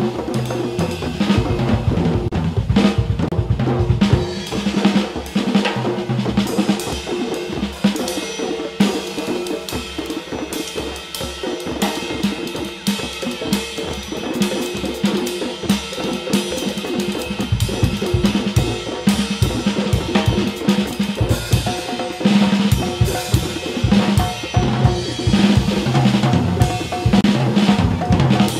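Band music led by a drum kit playing a busy groove of snare, bass drum and cymbals over a walking bass line; the low bass notes drop away for a few seconds midway, then come back.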